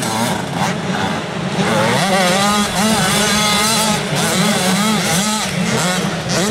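85cc two-stroke motocross bikes racing, the engines' pitch repeatedly rising and falling with throttle and gear changes.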